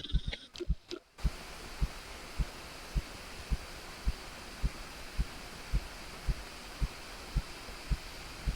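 Dull, low thuds at an even walking pace of about two a second, like footsteps, over a steady faint hiss. The sound drops out briefly about a second in.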